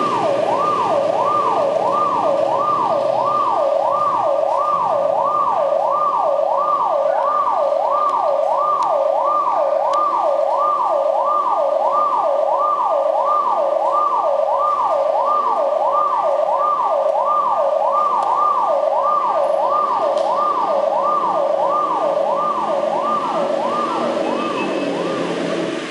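Recorded emergency-vehicle siren played over a sound system, its pitch sweeping up and down in a fast, even cycle of about one and a half sweeps a second, dying away near the end.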